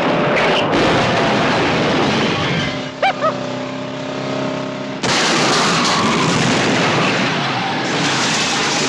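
Movie action soundtrack of vehicle stunts: car engines and crashes mixed with explosions. About five seconds in a loud blast or crash sets off a dense wall of noise that carries on.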